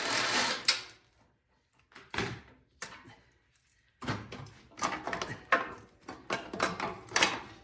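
Hand tools working the bolts on a snowblower's metal shroud, with scrapes, clicks and clinks of metal coming in bursts and a busier run in the second half.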